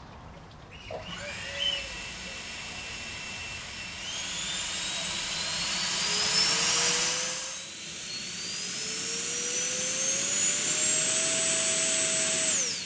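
Electric ducted fan of a model rocket spooling up with a rising whine, easing off briefly, then climbing again to full power and cutting off abruptly near the end. The rocket stays on the freshly painted landing pad under full power, its legs stuck to the still-sticky paint.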